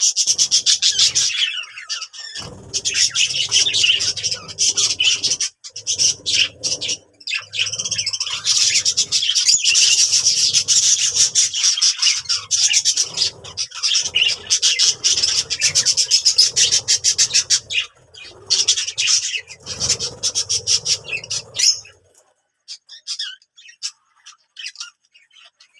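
Budgerigars warbling and chattering: a dense, rapid stream of chirps, clicks and squawks, thinning to scattered chirps for the last few seconds.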